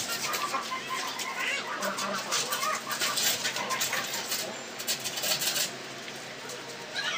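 Aluminium sliding window frame knocking and scraping against the block-wall opening as it is pushed and worked into place, a rapid run of small clicks and rubs that dies down about six seconds in. Short high calls sound in the background.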